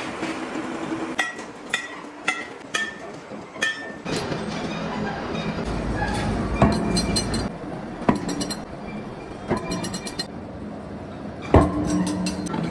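Sharp metal-on-metal clinks and knocks, each ringing briefly, at irregular intervals, from a heavy steel pulley, its shaft and a lifting chain being handled. A steady low hum runs underneath. A louder knock comes about two-thirds of the way through.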